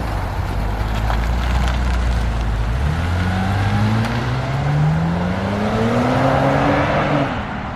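Kia Forte GT's 1.6-litre turbo four-cylinder on its stock exhaust, humming steadily low, then from about three seconds in the engine note rises smoothly for about four seconds as it revs up before dropping off near the end.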